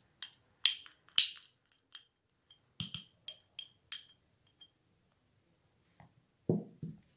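Small spoon clinking against a little glass bowl about a dozen times, each clink ringing briefly, as yogurt is scraped off it from a plastic cup. A duller knock follows near the end.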